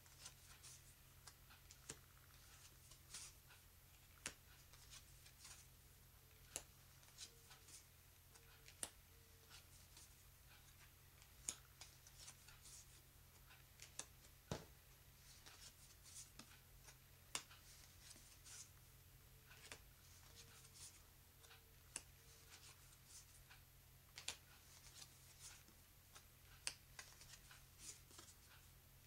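Thin glossy playing cards being laid down one at a time onto a pile on a wooden tabletop: faint short taps and slides, irregular, roughly one every second or two.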